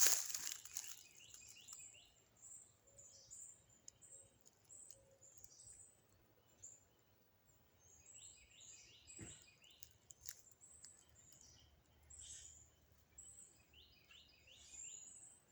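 Songbirds chirping and trilling in short repeated phrases, with brush rustling underfoot in the first second and a single dull bump about nine seconds in.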